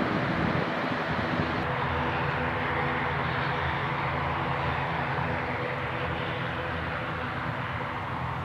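Airliner's engines running, a steady noise with a low hum of tones, slowly fading as the plane moves away.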